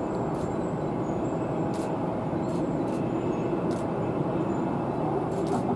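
A Boeing 787-8 airliner's jet engines heard from afar as a steady, even rushing noise while it taxis, with a few faint high ticks.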